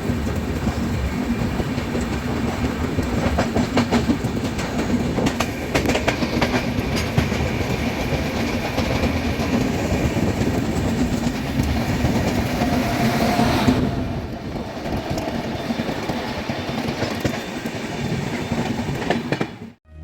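Passenger train running at speed: a steady rumble of wheels on the track with scattered clacks over rail joints. The higher hiss falls away about fourteen seconds in, and the sound cuts off abruptly just before the end.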